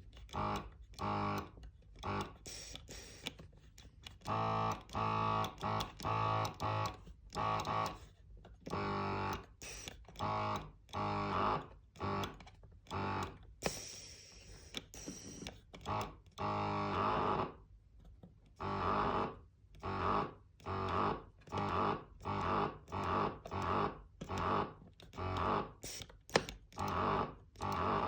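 A pump making a strange noise: a rough hum with many overtones that comes in rapid pulses, about one a second, broken for a few seconds near the middle by a steadier hiss.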